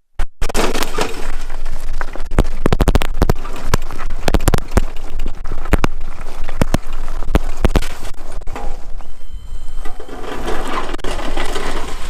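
Wheelchair-mounted snow plow being pushed through snow, its blade scraping and crunching with many sharp cracks and knocks throughout.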